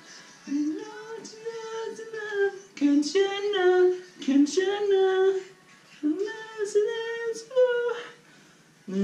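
A man singing along on his own without accompaniment, in a fairly high voice, in short phrases with brief pauses between them.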